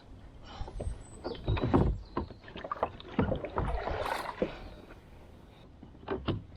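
Paddling a Galaxy Cruz plastic kayak: irregular knocks and splashes of paddle strokes on the water, with a longer rush of water about four seconds in.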